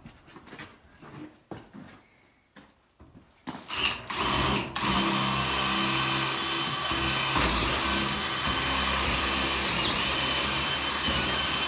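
Cordless drill boring a hole into a wooden post. A few light knocks come first, then a short burst of the drill about three and a half seconds in, and from about five seconds the drill runs steadily.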